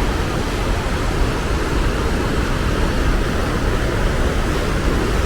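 White water of the Rogue River rushing through its narrow gorge: a steady, unbroken rush with a heavy low rumble.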